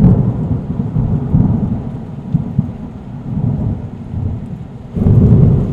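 Sea waves breaking on a beach, a loud low rumbling surf that eases off and then swells again with a new wave about five seconds in.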